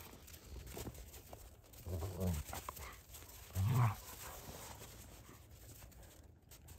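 A dog makes two short, low vocal sounds, about two seconds and three and a half seconds in, against a fairly quiet background.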